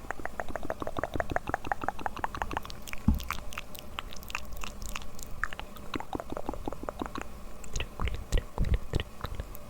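Close-miked ASMR mouth sounds: rapid clicks and smacks of the mouth, several a second, with a soft low thump about three seconds in and a few more near the end.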